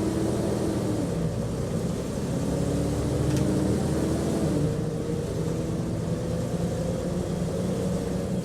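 Bus engine and road noise heard from inside the passenger cabin, running steadily: a low drone whose pitch drifts gently up and down as the engine speed changes a little.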